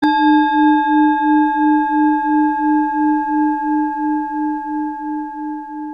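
A singing bowl struck once, ringing with a low tone that pulses about three times a second under several higher overtones, fading slowly.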